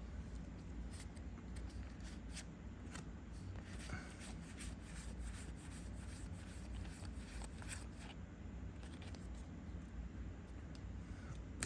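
Trading cards being handled and flipped through, with faint, irregular dry clicks and flicks over a low steady hum.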